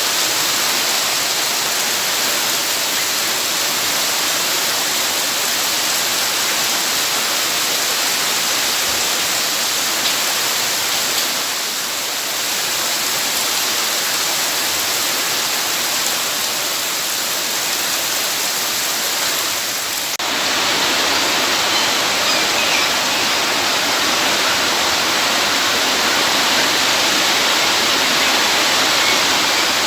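Steady rush of flowing water, like a waterfall or fast stream. About two-thirds of the way in it changes abruptly to a slightly louder, fuller rush.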